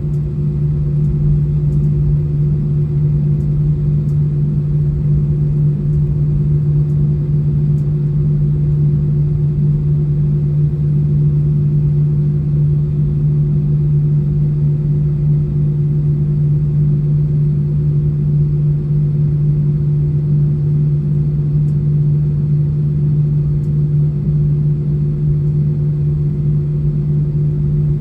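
Steady low hum inside the cabin of an Airbus A320 taxiing after landing, its jet engines running at idle, with a constant low drone and a fainter higher tone held unchanged throughout.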